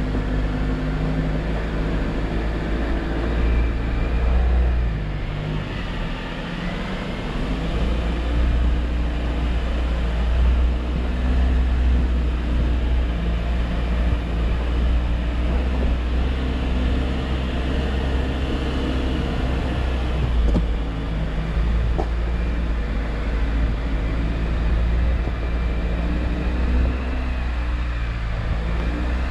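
Jeep Wrangler's engine running as it drives an off-road trail, its pitch rising and falling with the throttle over a steady low rumble.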